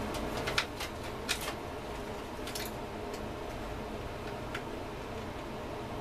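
Light, scattered clicks and taps of multimeter probes and leads against metal terminals on a welding inverter's power board, most of them in the first second and a half, over a steady low hum.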